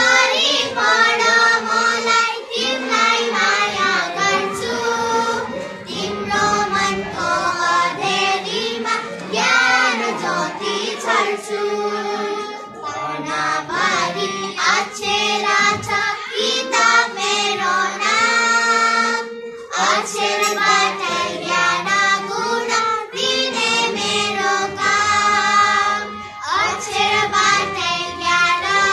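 A small group of young schoolgirls singing a song together, their voices carrying the melody with brief breaks between phrases.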